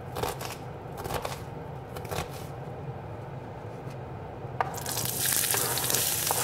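A knife scrapes diced onion across a plastic cutting board a few times. About five seconds in, the onion drops into the hot oil in the frying pan and starts sizzling steadily.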